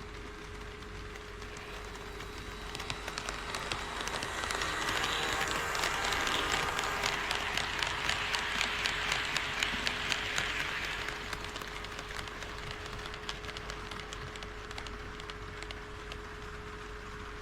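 HO scale model train running past on its track: a dense clicking of wheels on the rails that builds up, is loudest about six to ten seconds in, then fades.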